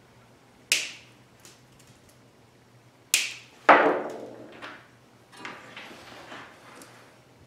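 Sharp knocks of small items being set down on a wooden workbench, three of them, the last and loudest ringing briefly. They are followed by softer rattling and handling noise.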